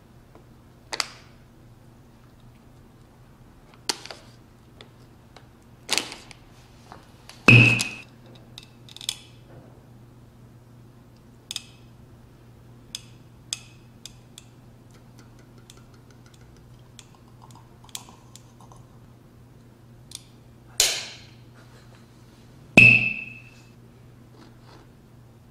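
Scattered sharp clicks and clinks of eating from a can and a snack packet, with two loud hits of a plastic squeaky toy hammer, each giving a short squeak, about seven seconds in and near the end.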